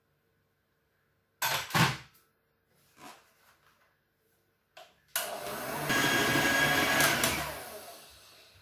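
Philips electric hand mixer running, its beaters whirring through cake batter; it starts abruptly about five seconds in and fades away near the end. Before that come a couple of short knocks about a second and a half in.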